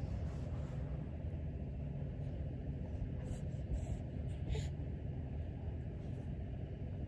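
A steady low rumble with a few faint small clicks.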